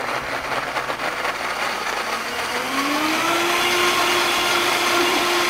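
Vitamix blender motor running, blending a thick banana-and-yogurt mixture. About two and a half seconds in, its whine rises in pitch and then holds steady.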